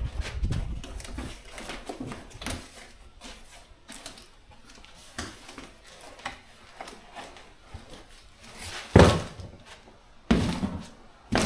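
Cardboard shipping boxes being opened and handled, with scattered rustling and clicking, then three loud thumps in the last few seconds as the pieces are moved.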